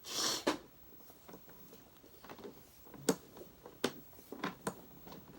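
Handling noise as things are moved about: a short scraping rustle at the start, then four or five sharp clicks and knocks in the second half.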